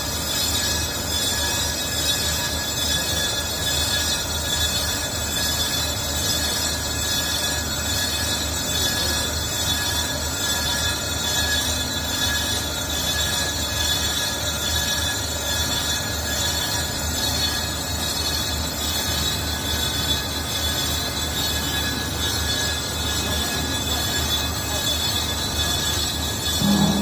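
Metal lathe facing a cast-iron brake drum: the cutting tool on the spinning drum gives a steady, high-pitched squeal over the machine's running hum. A brief louder low sound comes near the end.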